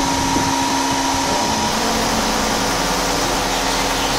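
Chiron FZ 40 vertical machining centre running: a steady mechanical whir with a few steady hum tones, no cutting strokes or impacts. A higher tone in it fades out a little under two seconds in.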